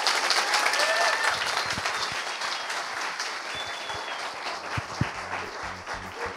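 A theatre audience applauding at the end of a stand-up set, loudest at first and slowly fading. Music comes in near the end.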